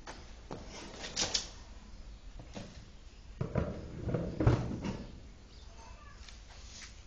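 Knocks and scrapes from dry feed being scooped out of a plastic tub with a small bowl and poured, the loudest dull knocks coming in the middle.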